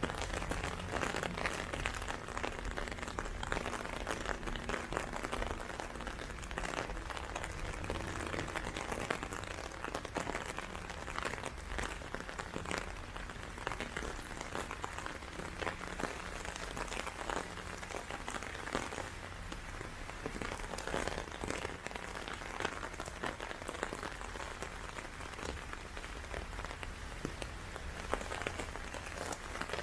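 Hard rain falling steadily, a dense patter of raindrops.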